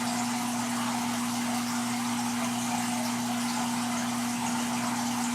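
Saltwater aquarium's pumps and water circulation running: a steady rush of moving water over a constant low motor hum.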